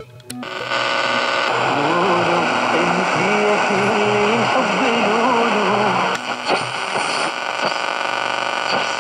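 Homemade medium-wave superheterodyne transistor radio playing through its speaker during a reception test: a loud hiss of static, with a weak station's audio wavering faintly under it. The hiss comes up under a second in, and a few crackles break in around six seconds in.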